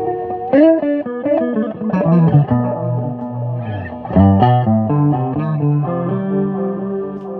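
Electric guitar music with effects: a melodic line of single notes with string bends over lower bass notes.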